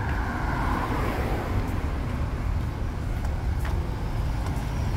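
Road traffic: cars driving along a busy multi-lane road, a steady rumble.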